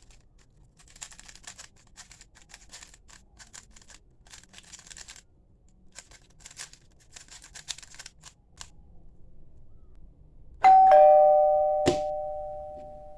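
Faint bursts of rapid clicking, then near the end a loud two-tone ding-dong doorbell chime, a higher note followed by a lower one, ringing out and fading slowly.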